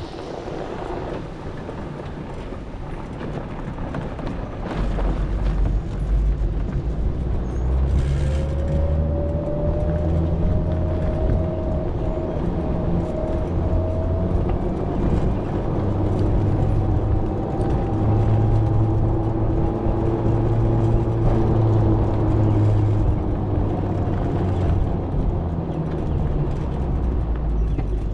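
A vehicle moving at low speed: a low motor hum over wind and road noise, with a faint whine that rises in pitch as it gathers speed. The sound grows louder about five seconds in.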